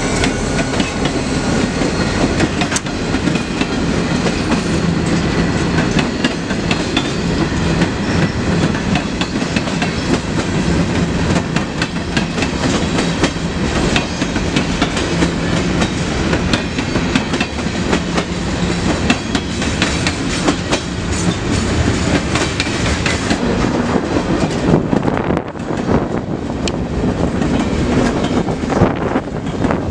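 Freight train passing close by: CSX diesel locomotives and then a long string of freight cars rolling past, with the clickety-clack of wheels over rail joints. About three-quarters of the way through, the sound changes to another string of boxcars rolling by.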